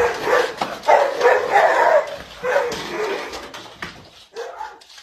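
A dog barking in a quick run of loud barks that grow weaker toward the end and stop just before the end.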